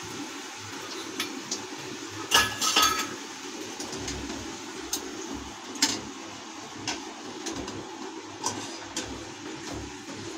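Steel tongs and a wire katori-frying mould clinking against a steel kadhai in scattered sharp clicks, the loudest pair about two and a half seconds in with a brief metallic ring, over the steady low hiss of hot oil as a maida cup deep-fries.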